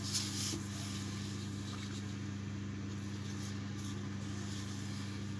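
A steady low hum, with a brief rustle of gloved hands in wet hair near the start.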